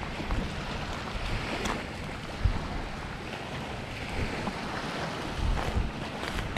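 Small waves lapping and washing over a rocky, pebbly shoreline, with wind rumbling on the microphone. A few footsteps crunch on the gravel.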